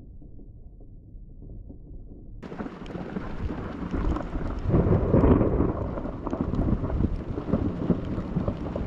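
Thunder from a lightning strike: a faint low rumble that swells suddenly about two and a half seconds in, is loudest around five seconds in, then keeps rolling.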